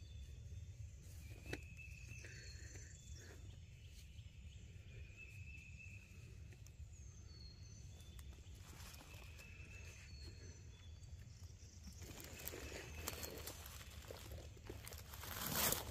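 Songbirds calling in short whistled chirps and slurs over a steady low rumble. In the last few seconds a rustling in leaf litter builds, peaking in a loud burst just before the end.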